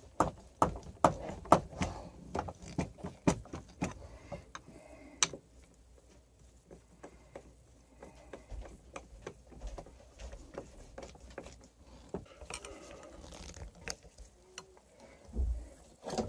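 Hand screwdriver tightening screws into a power drill's plastic housing, heard as small clicks and scrapes. They come two or three a second for the first few seconds, then turn softer and scattered, with a dull low thump near the end.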